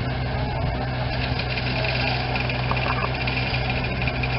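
Diesel engine of a mobile crane running steadily with a low, even hum, holding a suspended load.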